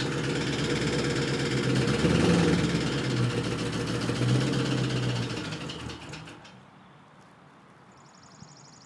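Saleen Ford Mustang engine running with heavy rod knock, the sign of a worn or failing connecting-rod bearing. About six seconds in it shuts off, giving a few last knocks as it winds down.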